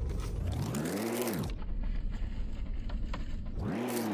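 Low, steady rumble of a car engine heard inside the cabin. Two rising-then-falling swooshes cross it, one about a second in and one near the end.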